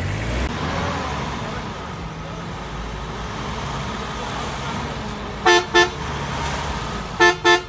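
An off-road 4x4's engine running steadily, with a car horn tooted in two quick double beeps: one pair about five and a half seconds in, another just before the end.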